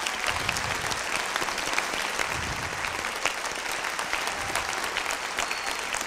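Large audience applauding: dense, steady clapping of many hands.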